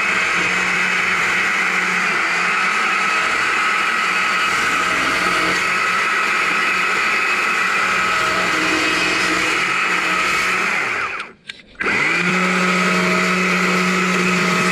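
Chainsaw running at high revs, its bar nose cutting into a small log. About 11 seconds in the engine briefly drops away, then revs back up and runs steadily again.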